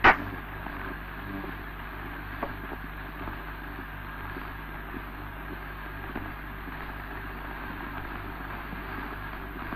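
Steady hiss and low hum of an early 1930s optical film soundtrack, with a sharp click right at the start and a few faint ticks.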